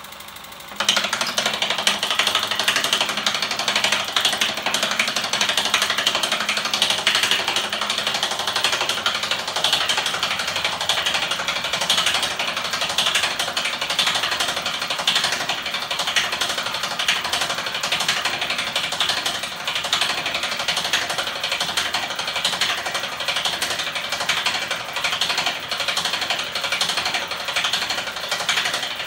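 Homemade electric-motor-driven magnet 'ornithopter engine' mechanism starting up about a second in and then running fast, its metal linkages and frame making a loud, rapid, steady clatter.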